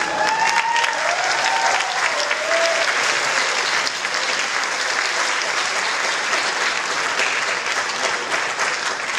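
Audience applauding steadily, with a few voices heard over the clapping in the first few seconds.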